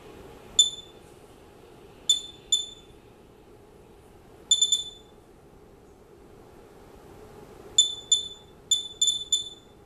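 Geiger counter's beeper giving short, sharp high-pitched beeps at random intervals, each beep one particle detected by the Geiger-Müller tube. About a dozen beeps, some alone and some in quick bunches of two or three.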